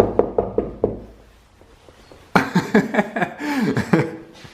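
People laughing: a run of short laughs in the first second, then louder laughter and exclaiming about two seconds in.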